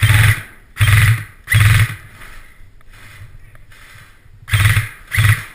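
Airsoft gun firing in short bursts of about half a second: three in quick succession, then a pause, then two more near the end.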